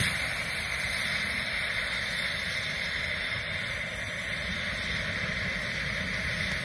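Pyrotechnic preburner burning with a steady, even rushing hiss. This is the long fuse stage that burns down toward a homemade 2 kg flash-powder salute.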